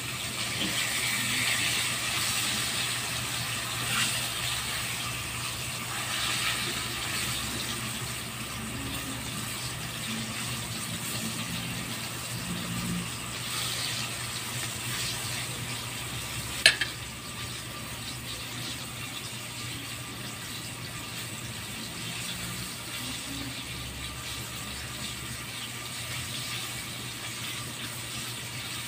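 Breaded fish pieces deep-frying in hot oil in a wok, sizzling steadily, a little louder in the first few seconds. One sharp click about two-thirds of the way through.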